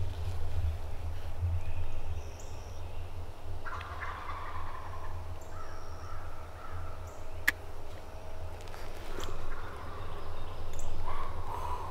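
Osceola wild turkey gobblers gobbling: one rattling, falling gobble about four seconds in and another near the end.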